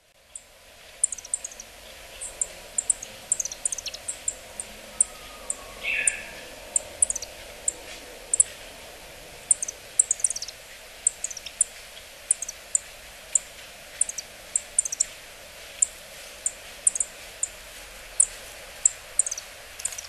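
Yellow-throated bunting giving short, high calls that each drop in pitch. The calls come singly and in quick pairs, a few each second, over steady background noise. A brief, lower sound comes about six seconds in.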